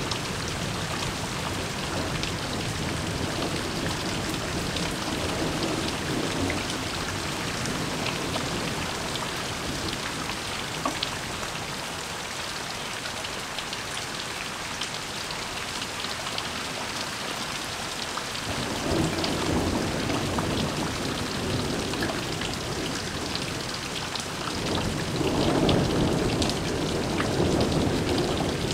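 Heavy rain pouring down steadily in a summer thunderstorm, with low rolls of thunder rumbling twice in the second half, the later one the loudest.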